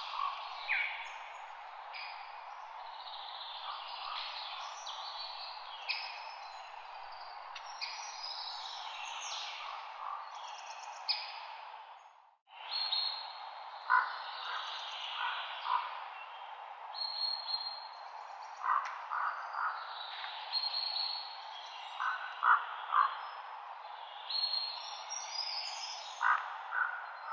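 Wild birds chirping and calling in many short phrases over a steady background hiss of outdoor ambience. The sound cuts out briefly about twelve seconds in.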